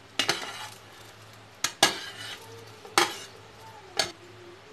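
A metal spoon clinking and scraping against a plate and the steel pot, about five sharp knocks, as soaked soya chunks are pushed off the plate into simmering gravy.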